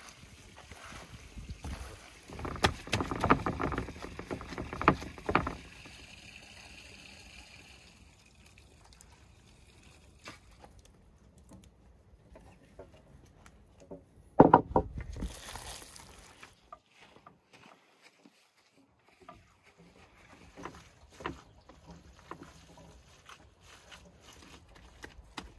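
Gloved hands squishing and kneading a wet minced-meat filling of onion, herbs and raw egg in a metal tray, with loud squelching for a few seconds early on. About halfway through there is a single loud wet slap, and quieter squelches follow near the end.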